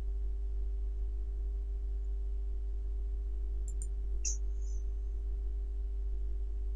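Steady low electrical hum with a faint steady tone above it, and a couple of faint clicks a little past the middle.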